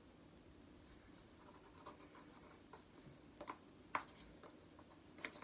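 Faint scratching and rustling of a paper postal package being handled and opened, with a few short sharp clicks about three and a half, four and five seconds in.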